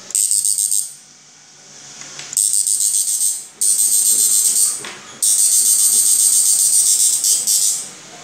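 Electric shock-fishing inverter firing into a test load: a loud, high-pitched buzzing hiss with a fast pulsing flutter, switched on and off in four bursts, the last one lasting almost three seconds.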